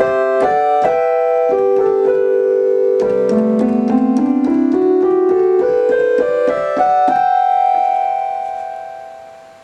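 Sequential OB-6 analog synthesizer played on its keyboard, using a patch with both oscillators and the sub-octave on. It plays a quick run of chords and notes that steps down and then climbs back up, ending on one held note that fades out over the last two seconds.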